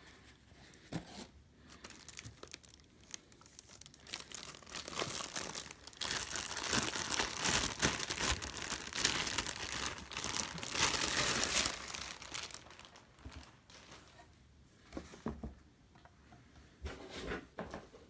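Plastic wrapping being pulled off a new piece of boxed electronics and crumpled: crinkling and rustling, loudest and most continuous for about six seconds in the middle, with scattered short rustles and handling knocks before and after.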